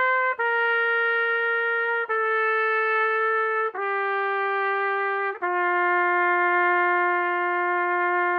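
Solo trumpet playing a slow descending five-note scale, written D down to G (concert C down to F): the end of the first note, then C, B and A about every second and a half, each newly tongued with a short break, and a long-held G whole note at the bottom.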